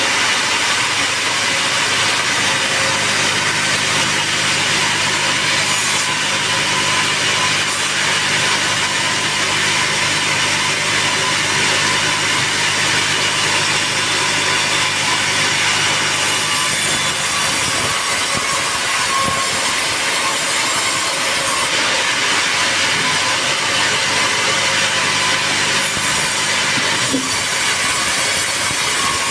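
Sawmill saw cutting lengthwise through a teak log, a steady continuous cut over the saw's motor hum.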